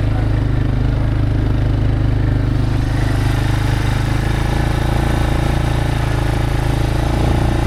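Small vehicle engine running steadily while driving, a low even drone.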